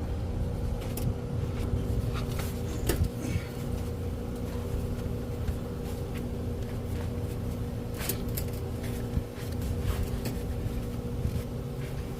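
A steady motor drone, low and even with a constant hum, with a few light clicks and taps over it.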